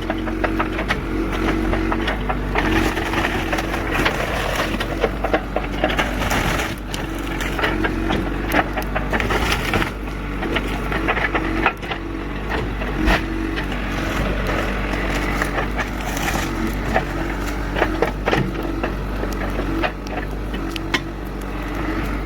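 Backhoe engine running steadily while it pushes over a wooden cabin, with repeated cracking, splintering and crunching of the timber structure as it breaks apart.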